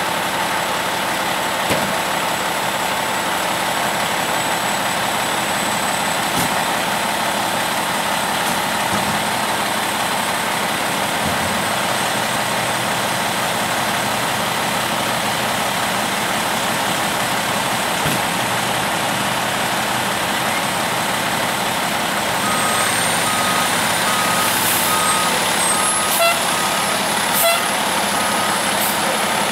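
Pierce fire truck's diesel engine idling steadily, with a thin high whine over it. About three-quarters of the way through, an electronic beeping starts, repeating a little faster than once a second, along with a rising whistle and a couple of sharp knocks as the truck moves off.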